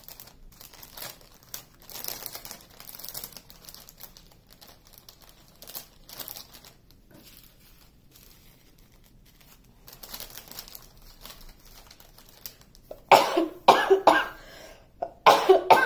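Plastic zip-lock bags of drills crinkling and rustling as they are handled, then a woman coughing about five times in two quick bouts near the end, a cough she has come down with.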